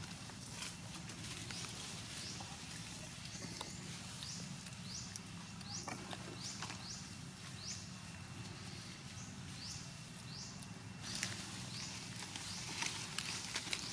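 A short, high-pitched chirping call repeating about every three-quarters of a second, over scattered light ticks and rustles that get busier near the end, with a steady low hum underneath.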